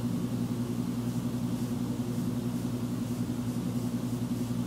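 Steady low hum with an even hiss underneath, the background noise picked up by a computer's built-in microphone array.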